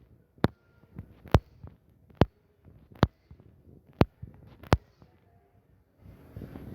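Sharp percussive knocks repeating roughly once a second, with fainter ticks between them.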